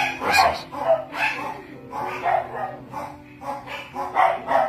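A dog barking repeatedly, about two barks a second, over background music with held notes.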